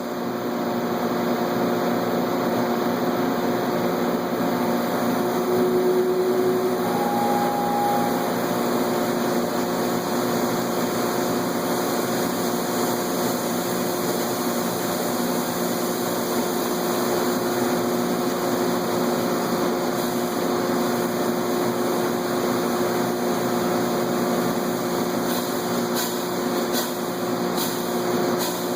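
Industrial machinery running steadily: a constant hum with several held tones over a noisy hiss, with a few faint ticks near the end. No hammer blows are heard.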